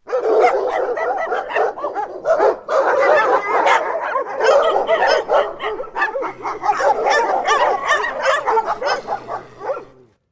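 Dog barking rapidly and without a break, dying away near the end.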